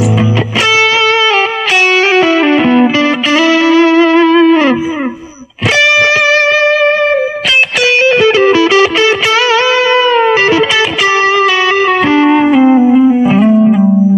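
Electric guitar played through a Mooer GE200 amp-modelling multi-effects unit: a single-note lead melody with string bends and vibrato. There is a short break about five and a half seconds in, and it ends on a long low note.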